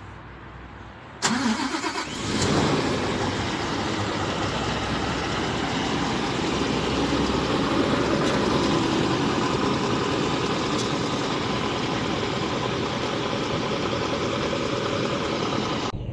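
Scania S730 truck's V8 diesel engine starting about a second in, briefly rising as it catches, then settling into a steady idle.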